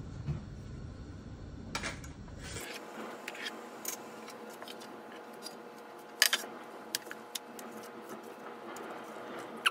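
Soft rustling and light clicks and knocks as a thin sheet of baklava dough is laid into an aluminium baking tray and its edges trimmed off, with one sharper click a little past halfway. A faint steady hum runs underneath.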